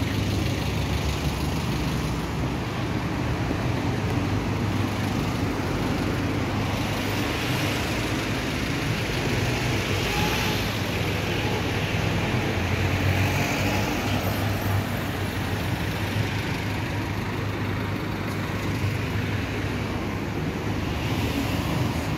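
Town street traffic: cars running and passing over a steady low rumble, with a hiss of passing traffic swelling twice near the middle.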